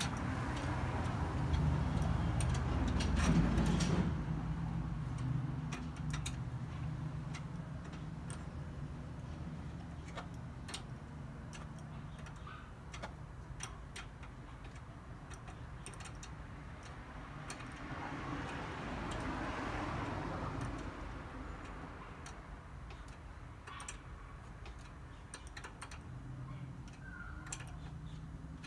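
Small irregular plastic clicks and taps from hands working the headlight bulb, its connector and the housing at the back of a Honda Civic headlight. A low rumble swells and fades over the first four seconds, with a softer swell about twenty seconds in.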